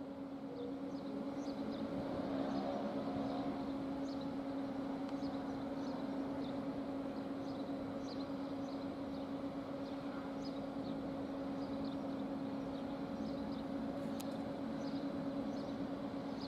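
Railway-station ambience: a steady low electrical hum from electric trains in the station, slightly louder from about two seconds in. Small birds chirp briefly and often over it.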